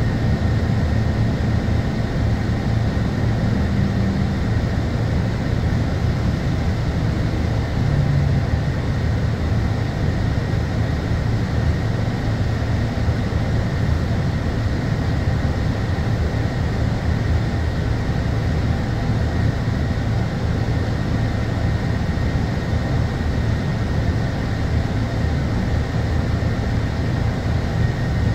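Scania K230UB city bus's rear-mounted five-cylinder diesel idling steadily while the bus stands still, heard from inside the passenger cabin. A faint steady high whine sits over the low engine hum.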